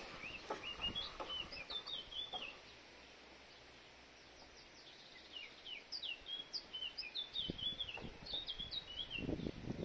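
A small songbird chirping in quick, repeated phrases of short notes, over a background of scattered knocks and thumps that thin out in the middle and pick up again toward the end.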